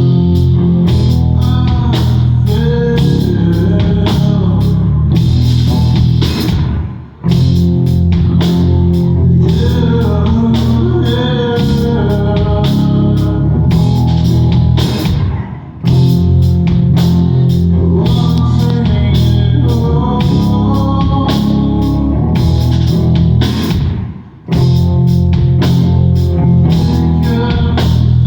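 Live rock band playing loudly, with guitars and a drum kit, the music cutting out for a split second three times at even intervals about eight and a half seconds apart.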